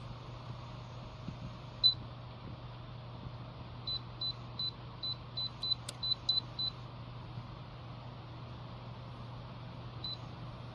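Dreo space heater's touch control panel beeping as its buttons are pressed: a single high beep, then a quick run of about ten beeps, about three a second, then one more near the end, over a low steady hum.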